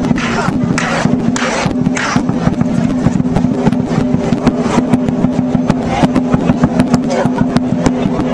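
Dragon dance percussion music: fast, steady drumming, with cymbal crashes about twice a second in the first two seconds and again near the end.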